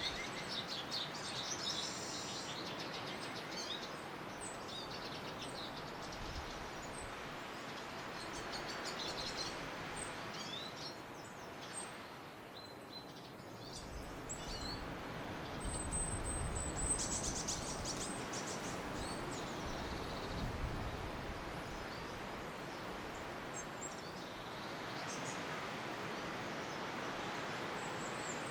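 Several small birds chirping and calling in short, high notes, with a thin high whistle about halfway through, over a steady rushing background noise.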